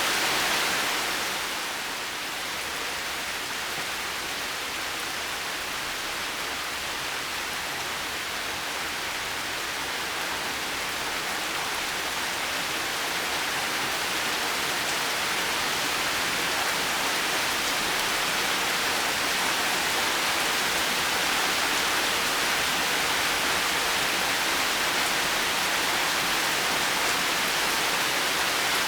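Heavy rain falling steadily as a dense, even hiss. It eases slightly about two seconds in, then slowly builds back up.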